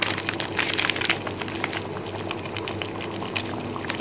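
Chicken and tomato-onion gravy simmering in a pot, its bubbles popping in quick, irregular crackles over a steady low hum.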